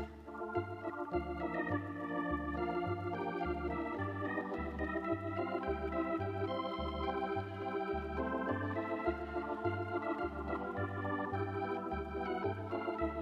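Background organ music: held keyboard chords and a melody over a steady bass beat of about one and a half beats a second.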